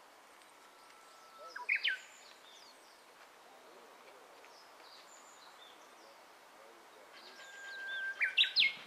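A songbird sings two phrases, about a second in and again near the end. Each phrase is a long held whistle that ends in a quick flourish of sharp rising and falling notes, over a faint outdoor background hiss.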